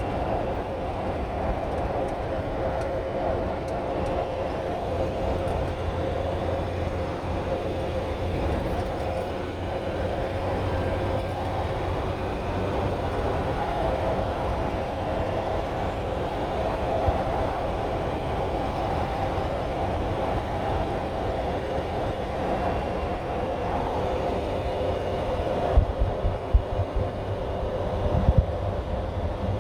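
Steady engine and road noise heard from inside a moving vehicle's cab, with a few sharp knocks near the end.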